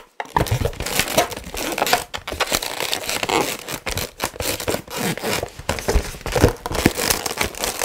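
Inflated latex twisting balloons squeaking and rubbing against each other and the hands as a finished balloon figure is squeezed and adjusted: a dense, irregular run of squeaks and creaks.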